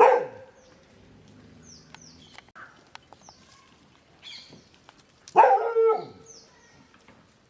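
An animal calls twice, briefly at the start and again for about half a second near the end. Small birds chirp faintly in between.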